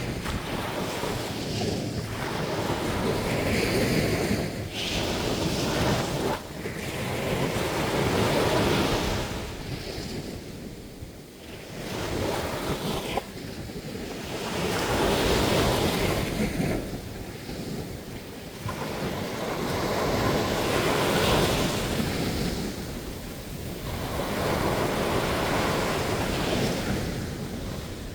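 Surf on a sandy beach: waves breaking and washing up the shore, the rushing noise swelling and fading every five or six seconds.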